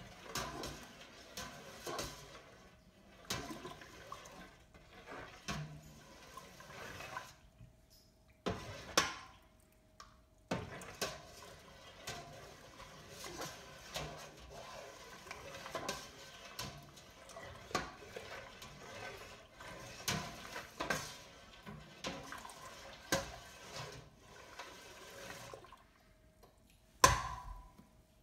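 A spoon stirring wort in a stainless steel stockpot, swishing the liquid and clinking and scraping against the pot's sides and bottom in irregular strokes, with a few short pauses. The liquid malt extract is being mixed in so it does not stick to the bottom. A single louder knock comes near the end.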